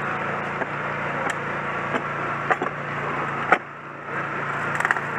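An engine running steadily at one pitch, with sharp knocks and clicks every second or so; the loudest knock comes about three and a half seconds in, and a quick run of clicks follows near the end.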